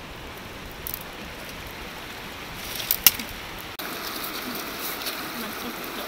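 A few sharp knocks, the loudest about three seconds in; then, after a sudden cut, a shallow river running steadily over stones.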